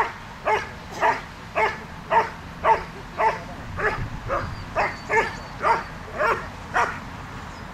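German Shepherd dog barking at a helper holding a protection sleeve: a steady run of loud barks, about two a second, that stops shortly before the end.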